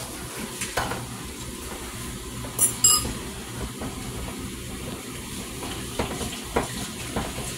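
Food sizzling steadily in a pan on the stove, with a few light clicks and clinks of kitchen utensils; the loudest is a pair of sharp clinks about three seconds in.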